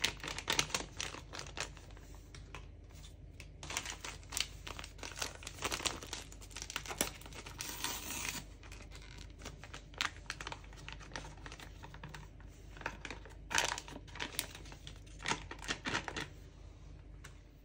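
A pudding powder sachet crinkling and crackling as hands handle it and tear it open, with a longer tear about eight seconds in. The rustling eases off near the end.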